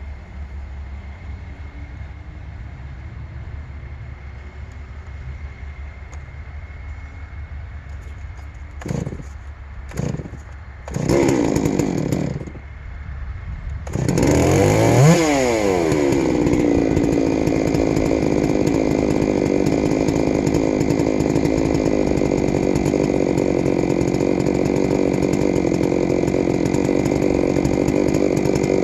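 Chainsaw on a chainsaw mill: two short bursts and a brief run as it is started, then it revs up and runs at steady full throttle, cutting a tamarack log with its freshly sharpened, reprofiled chain. Before the start there is a low steady rumble.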